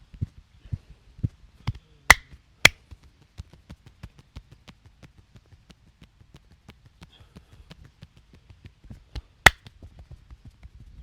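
Hands tapping and chopping rhythmically on a person's head and back during a massage, steady knocks at first and faster, lighter taps later. Three loud sharp cracks stand out: two about half a second apart around two seconds in, and one near the end.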